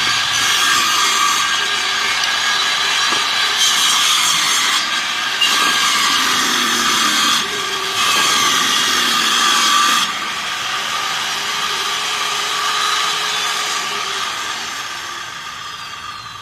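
Circular saw mounted under a homemade wooden saw table, running with a steady whine as wood is fed through the blade. The cutting noise comes in several louder passes during the first ten seconds. After that the saw runs with no load and the sound fades near the end as it begins to wind down.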